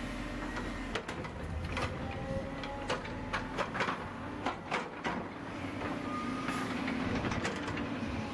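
Volvo EC210BL excavator running under load, its diesel engine humming steadily while the bucket digs into a clay pile. A quick run of sharp clanks and knocks comes from about one to five seconds in, with a few more near the end.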